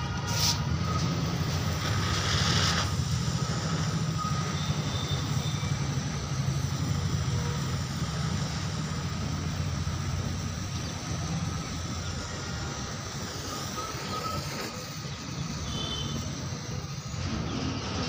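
A hand-held pencil firework burning and spraying sparks, with a steady hiss that starts suddenly as it catches.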